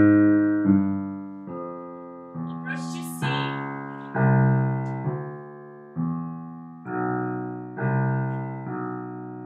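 Digital piano played in the low register by the left hand: a series of chords struck one after another, about one a second, each ringing and fading before the next.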